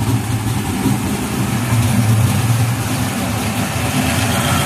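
A Fox-body Mustang's 349 small-block Ford V8 with a solid-roller cam, idling steadily through Dynomax Super Turbo mufflers on a 3-inch catted X-pipe.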